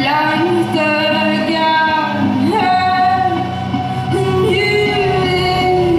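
Live band music: a woman singing long held notes in Swedish over electric guitar and bass, each note sustained for a second or more before moving to the next pitch.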